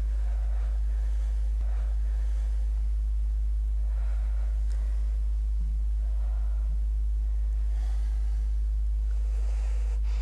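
Steady deep hum: one low, unchanging tone with a few fainter steady tones just above it, and only faint soft sounds higher up.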